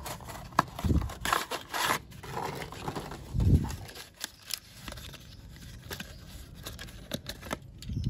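A toy box being opened by hand: scraping, tearing and crinkling of the packaging with many small clicks, and a couple of dull thumps from handling.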